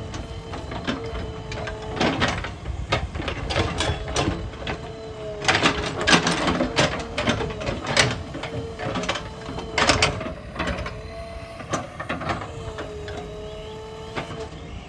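JCB backhoe working: its engine and hydraulics run with a steady whine that wavers slightly, broken by repeated sharp knocks and clatters of metal striking soil and stone.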